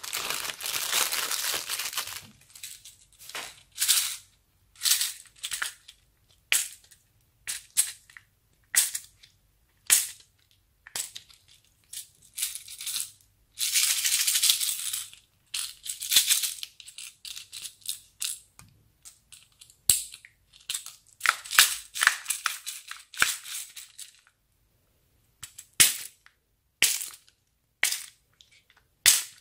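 A plastic zip-lock bag crinkles as it is shaken out, then small plastic pieces (short tube bits and beads) drop into a glass bowl in scattered sharp clicks and rattles. About halfway through comes a short rush of beads poured from a small plastic cup, and near the end there are clicks from a clear plastic compartment box being handled.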